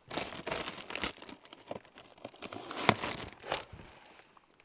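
Thin plastic wrapping crinkling and rustling as hands rummage among plastic-wrapped rolls of lace, with a few sharp crackles, the loudest about three seconds in. It dies away near the end.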